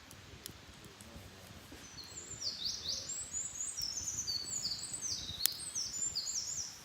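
A small songbird singing a rapid, jumbled string of high, short notes that each sweep downward, starting about two seconds in and stopping abruptly at the end. A couple of sharp clicks sound over it, the loudest about five and a half seconds in.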